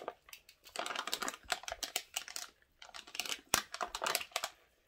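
Aluminium foil crinkling and crackling as a child squeezes and handles a foil pouch, in quick irregular clicks that come in clusters.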